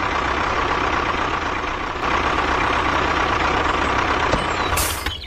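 Tractor engine running steadily, with a constant whine over a low rumble; it steps up slightly about two seconds in, and a short hiss comes near the end.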